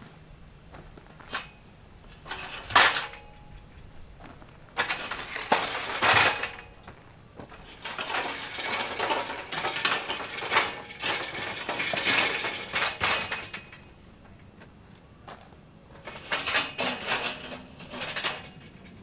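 Steel scaffolding frames and cross-braces clanking and rattling as a scaffold tower is moved and put together. There are several bursts: sharp knocks about three seconds in, a clatter around six seconds, a long stretch of dense rattling in the middle, and another clatter near the end.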